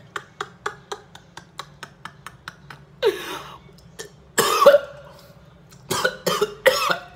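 A man making a run of quick sharp clicks, about four a second, for the first three seconds, then several short, loud cough-like vocal bursts: one with a falling pitch about three seconds in, the loudest a second later, and three more near the end.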